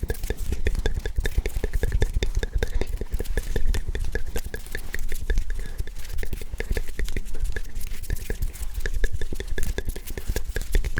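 Close, unintelligible ASMR whispering mixed with hand sounds right at the microphone: a dense, continuous run of rapid clicks and rustles.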